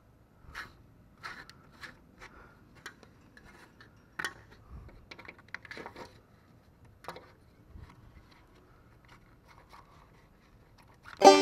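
Scattered short scrapes and clicks of a wood-handled metal scraper blade prying out the outside glazing of an aluminum window frame, metal working against metal and glass. Loud banjo music starts just before the end.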